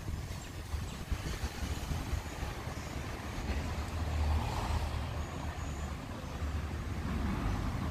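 Steady low rumble of motor traffic, swelling slightly about four seconds in.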